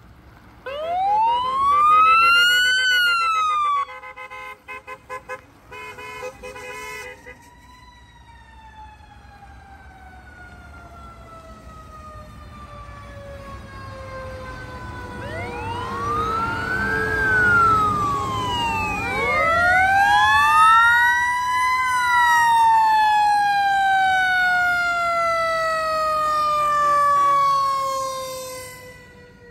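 Fire truck sirens wailing. One winds up and falls within about three seconds and cuts off, followed by a few seconds of short rapid blasts. Then several sirens overlap, each rising and then falling slowly in pitch over many seconds, loudest in the second half.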